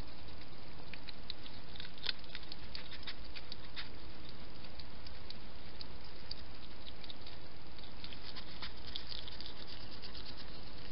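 Hedgehog foraging at the grass edge, making quick runs of small clicks and crackles in two spells, about a second in and again about seven seconds in, over a steady hiss.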